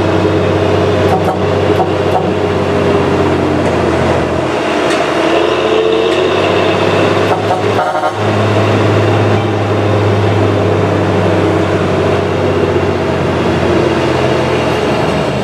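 Bus engine running steadily under way, a low hum with road noise, briefly dipping about halfway through.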